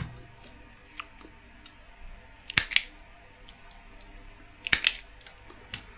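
Hand cutters snipping: a light click about a second in, then two quick double snips about two seconds apart.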